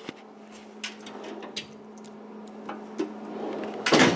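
Scattered light clicks and taps of a fiberglass fairing panel being handled and held in place on a motorcycle, with a short, louder noise near the end. A faint steady hum runs underneath.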